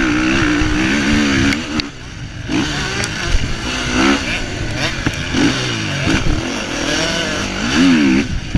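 Motocross bike engine heard up close from a camera mounted on the bike while it races on a dirt track, revving up and dropping back again and again through gear changes and throttle.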